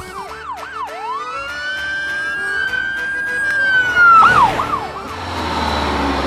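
Police car siren: quick yelping whoops, then a long rising wail held steady, which falls away in a couple of fast swoops about four seconds in, together with a short loud whoosh of noise. After that, a bus engine runs with a steady rumble as the siren ends.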